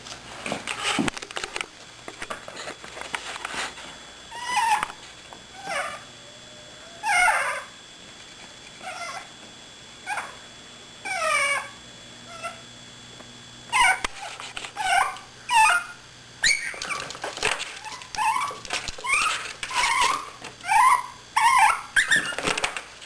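Chihuahua puppy whining and squeaking over and over: short high cries, most sliding down in pitch, few at first and coming thick and fast in the second half. A few clicks and knocks near the start.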